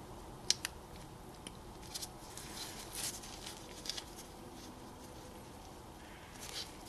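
Faint scattered clicks and light scrapes of metal parts being handled: a brake pad and its anti-squeal shim plate being fitted into place by hand.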